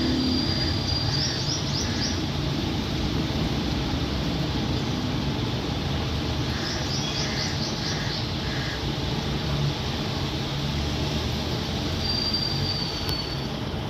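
Birds calling: a quick run of high chirps about a second in and again around seven seconds in, and a held high whistle near the end, over a steady low rumble and hiss.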